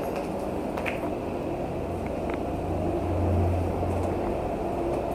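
Steady low rumble of road traffic, with a heavy vehicle's engine hum swelling and fading about three seconds in. A few faint clicks sound over it.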